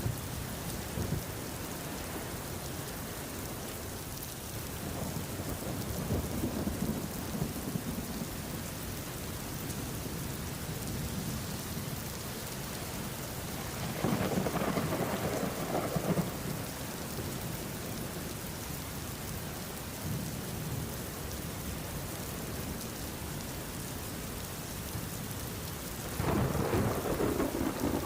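Steady rain with rolls of thunder: a low rumble about five seconds in, a louder one at about fourteen seconds lasting a couple of seconds, and another starting near the end.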